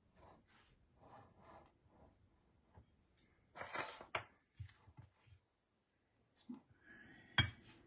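Spoon or spatula stirring and scraping dry flour in a ceramic bowl: soft scattered scrapes and rustles, a louder scrape a little over three seconds in, and a sharp knock of the utensil or bowl near the end.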